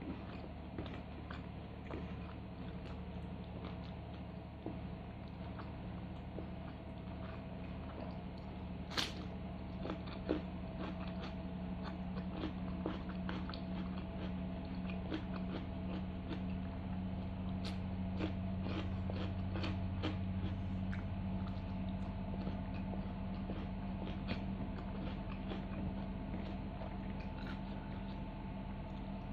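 Close-up eating sounds: chewing and biting on mouthfuls of rice and salted fish, with many small wet mouth clicks and some crunching, over a steady low hum.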